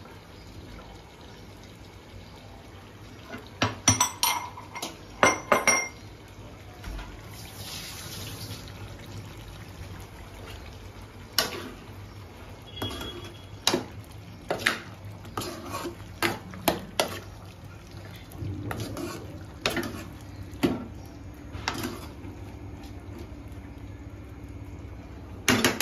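Steel ladle stirring prawn curry in a metal kadai, clinking and scraping against the sides of the pan in irregular knocks.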